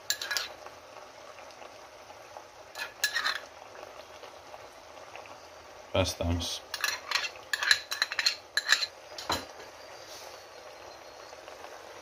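A spoon clinking and scraping against a pot or container as tomato paste is spooned into the cauldron: a few sharp knocks near the start and about three seconds in, then a quick run of clinks and taps in the second half, over a faint steady sizzle.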